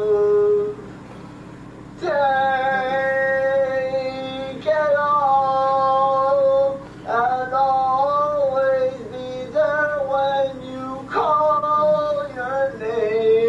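A young man singing a slow love song unaccompanied in a high voice. He holds long drawn-out notes, breaks off about a second in, and then sings shorter, wavering phrases in the second half.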